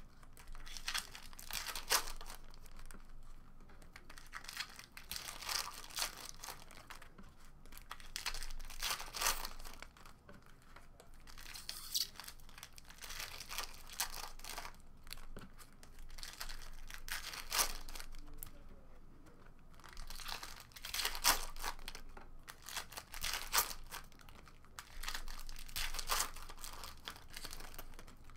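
Foil trading-card pack wrappers being torn open and crinkled by hand, in irregular bursts every second or two.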